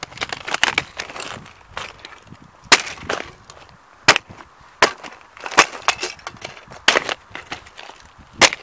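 Sneaker soles stomping on a die-cast model car lying on dirt: sharp, irregular cracks and snaps of its red metal body and black plastic chassis breaking, with crunching of grit underfoot. The loudest crack comes a little under three seconds in, and another near the end.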